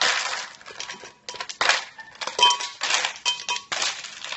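Ice cubes poured from a plastic bag into a glass blender jar, clattering and clinking against the glass in a run of irregular bursts, a few with a short ringing clink.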